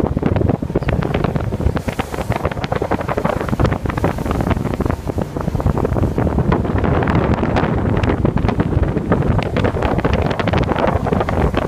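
Wind buffeting the phone's microphone on a boat out on open water, a loud gusty rumble with constant irregular crackle, over a wash of water noise.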